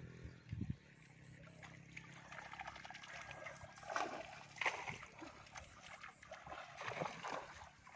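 Pond water splashing and trickling as a net is hauled through the shallows, in several irregular bursts. A low hum stops under a second in.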